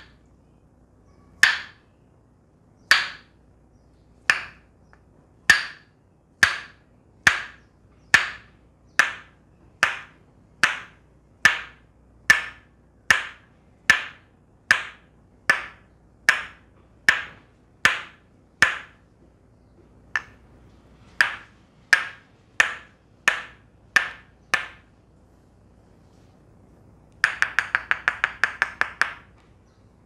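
Tok Sen massage: a wooden mallet striking a wooden wedge held against the shoulder, giving sharp wooden knocks. They come about a second and a half apart at first and quicken to under a second apart. After a pause of about two seconds, a quick run of rapid taps comes near the end.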